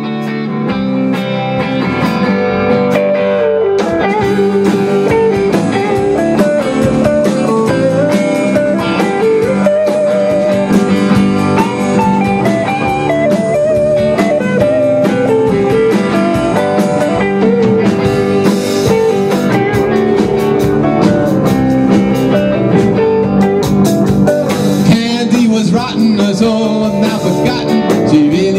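Rock band playing a blues-rock number live: electric guitars with a bending melodic line over bass and a drum kit, building up over the first second or two.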